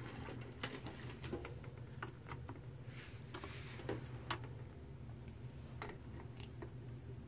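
Small plastic toys being handled: scattered light clicks and taps as tiny figures are picked at and set onto a plastic playset, over a faint low room hum.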